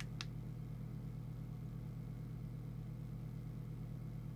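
Steady low electrical hum from the bench setup, with one short click about a quarter of a second in as a front-panel button on the CB radio is pressed.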